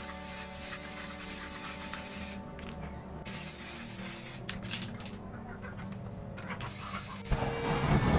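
Aerosol spray-paint can hissing in three spells with short pauses between them. Near the end a loud, low rumbling whoosh comes in.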